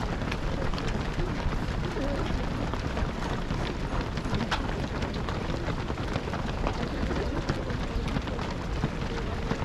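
Footsteps of a large pack of marathon runners patting steadily on the road as they stream past, with scattered voices among them and a low rumble of wind on the microphone.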